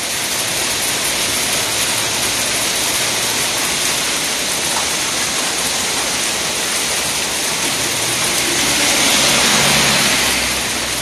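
Small hail mixed with rain pelting an umbrella and wet asphalt in a dense, steady hiss. It swells louder for a couple of seconds near the end, with a low hum beneath.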